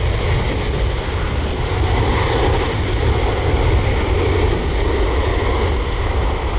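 Boeing 777-300ER's twin GE90-115B turbofans at takeoff thrust during the takeoff roll: a loud, steady rumble with a heavy low end.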